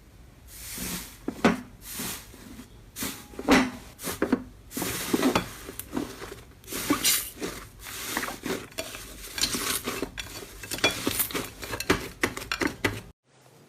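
Hands squishing and poking slime: a rapid, irregular run of sticky clicks and crackles that stops suddenly near the end.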